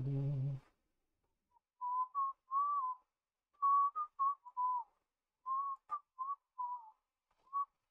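A man whistling a tune through his lips: a string of short notes around one pitch, with small slides up and down. A single click comes about six seconds in.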